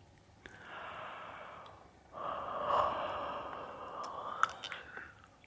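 Close-miked human breathing: a soft breathy inhale, then a longer, louder open-mouthed exhale (a fogging 'haa') into the microphone, with a small mouth click near the end.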